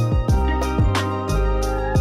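Background music with a steady beat of drum hits under sustained chords.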